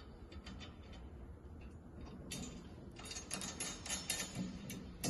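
A washer and nut being fitted onto a bolt of a 3-point finish mower's hitch straps: scattered light metallic clicks, then a quicker run of clicks in the second half.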